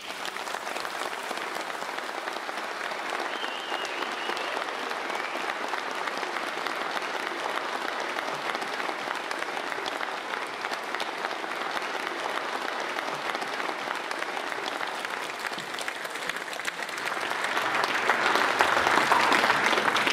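Concert hall audience applauding, growing louder over the last few seconds.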